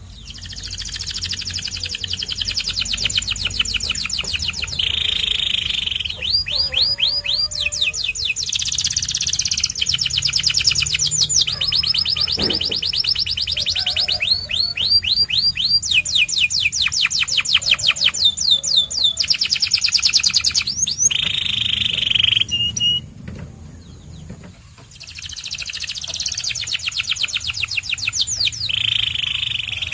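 Canary singing: long runs of fast, rolling trills made of rapidly repeated notes, one tour after another, some held on one pitch and some sweeping. The song breaks off for about two seconds past the middle, then resumes.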